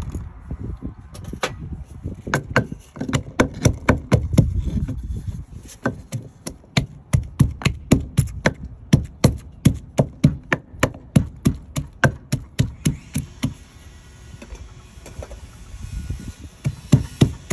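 Wooden pestle pounding garlic cloves and chilies in a wooden mortar: sharp, steady wooden knocks at about three strokes a second, with a short pause near the end before the pounding resumes.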